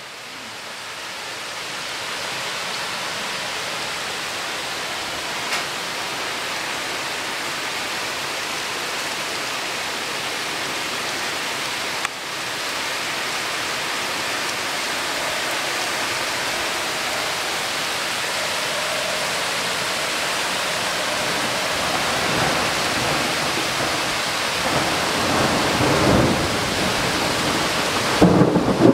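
Heavy rain falling steadily on a conifer forest in a thunderstorm, with thunder rumbling low and rising over the last several seconds.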